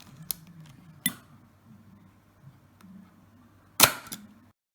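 Sharp mechanical clicks from a Canon L1 rangefinder camera being worked: two lighter clicks in the first second or so, then a much louder click with a short ring near the end.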